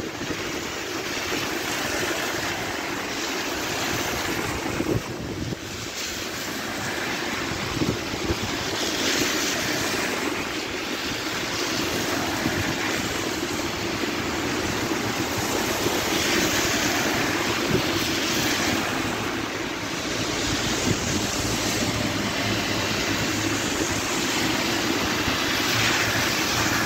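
Steady rain falling on a wet street and on an umbrella held over the phone, a constant hiss that swells louder several times.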